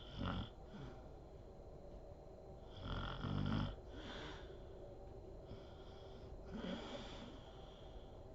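A sleeping woman snoring: three snoring breaths about three seconds apart, the middle one the loudest and longest.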